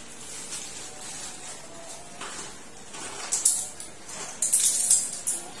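Crinkly rustling and crackling of gift wrapping being handled and torn open, in two bursts: a short one past the middle and a longer one near the end.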